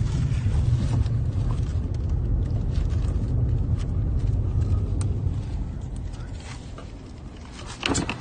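Low, steady road rumble of a car in motion, with scattered small clicks. The rumble fades in the last few seconds, and a short sharp clatter comes near the end.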